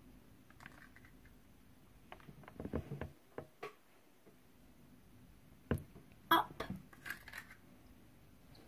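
Light taps and clicks from handling a plastic bubble bottle and wand and from a finger tapping a laminated core word board. They come in two clusters, about two to four seconds in and about six to seven and a half seconds in, with the sharpest click a little after six seconds.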